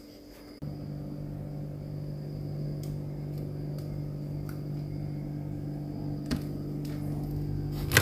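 A steady low machine hum starts suddenly about half a second in and holds evenly, with a few faint ticks.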